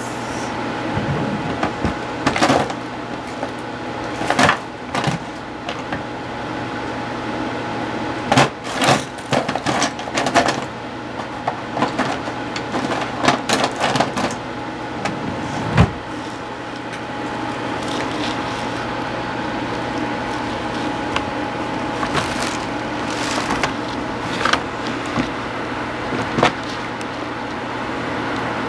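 Scattered clicks, knocks and rustles of movement and handling close to a clip-on microphone, thickest in the first half and sparser later, over a steady low hum.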